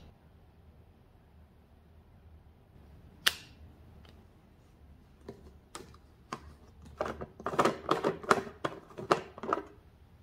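Hollow plastic jack-o'-lantern container being handled, clicking and crackling. There is one sharp click about three seconds in, then a quick run of plastic clicks and crackles through the second half, busiest near the end.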